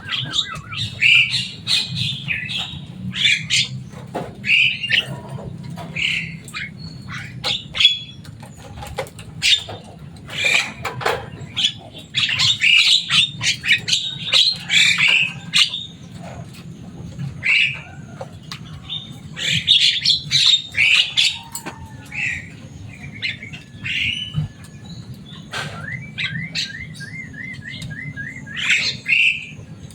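Javan myna (jalak kebo) calling: a loud, busy mix of harsh squawks, chirps and chatter with sharp clicks, and a quick run of repeated notes near the end.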